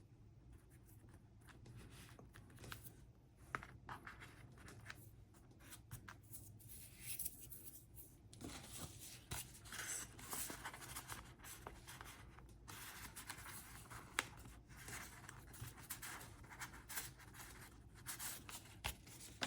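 Faint rustling and scraping of paper and cardstock being handled and arranged, with scattered small taps and clicks.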